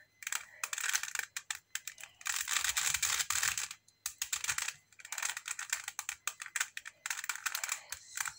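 Plastic stickerless 3x3 speed cube being turned quickly by hand: fast runs of clicking and clattering from the layers, broken by short pauses, about halfway through and near the end.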